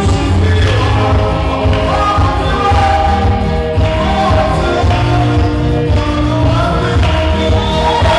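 Worship band music with singing: a full band with strong, steady bass under a sung melody.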